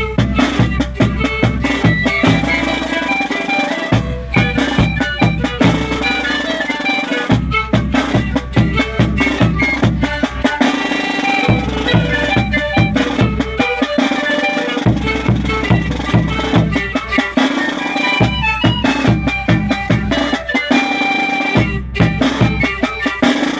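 Zampoña (Andean panpipe) band playing a tune together, with a large bass drum beaten with a mallet and a snare drum keeping a steady beat.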